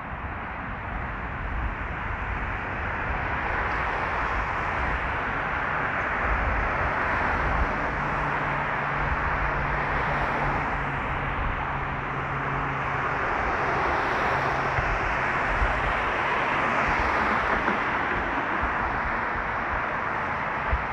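Steady traffic noise from passing vehicles, swelling slightly, with a low engine hum in the middle.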